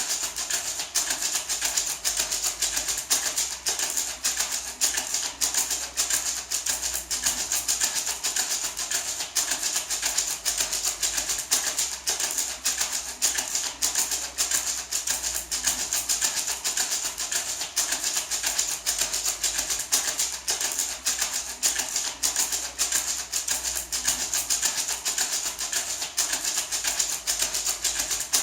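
Small gourd maraca rattling, shaken continuously in a steady, even rhythm, its seeds making a dense, crisp rattle.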